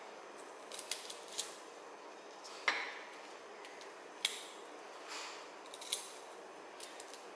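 Garlic cloves being peeled with a kitchen knife over a plastic cutting board: scattered light clicks and scrapes of the blade, the skin and the cloves set down on the board.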